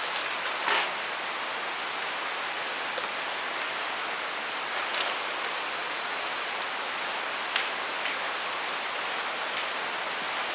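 Steady hiss with a few faint clicks scattered through it.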